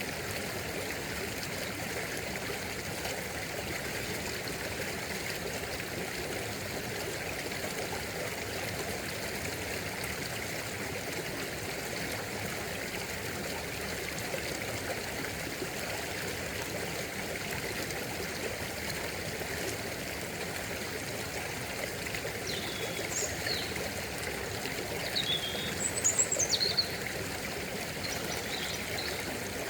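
Small stream running steadily over stones, a continuous trickling rush. A few high, short sliding chirps come in near the end, briefly louder than the water.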